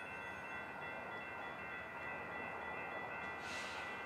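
Warning bells ringing steadily as a passenger train approaches, over the train's low rumble. A brief hiss comes about three and a half seconds in.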